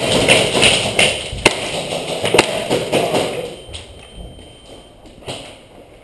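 A few sharp clacks and thuds over a noisy hubbub; the hubbub dies down after about three and a half seconds, leaving isolated clicks.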